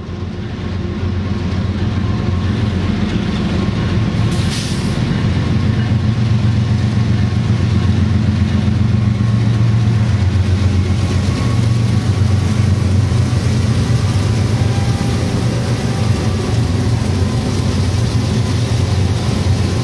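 Diesel freight locomotives of a BNSF stack train running steadily past, a low engine drone with continuous rattling, with a short hiss about four and a half seconds in.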